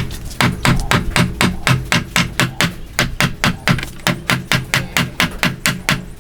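Rapid, even strokes of a hand tool working wood, about five a second.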